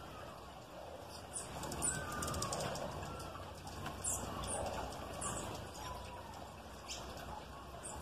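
Small songbirds giving short, very high-pitched chips, about half a dozen spread out, over softer, lower calls from other birds in the background.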